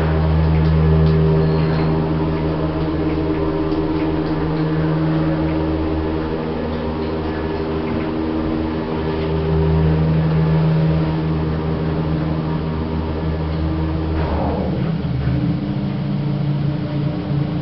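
Old Jensen passenger lift travelling, its drive machinery giving a steady pitched hum. About 14 seconds in, the hum slides down in pitch as the car slows.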